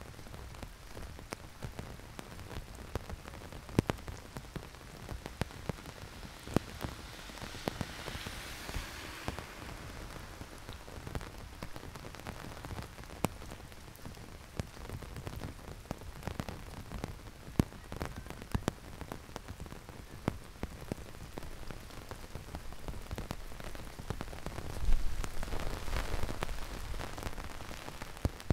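Heavy rain falling steadily, with many sharp, close drop hits. A hiss swells briefly about eight seconds in, and a louder swell of sound comes near the end.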